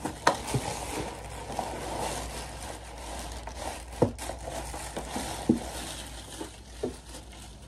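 Bubble wrap and plastic packaging crinkling and rustling as a plastic jack-o'-lantern is worked out of a cardboard box. There are a few sharp knocks, the clearest about four seconds in and another about five and a half seconds in.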